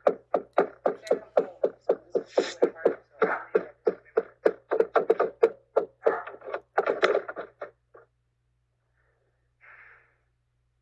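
Rapid, rhythmic knocking or banging on a front door, about three blows a second, heard through a doorbell camera. It stops about eight seconds in.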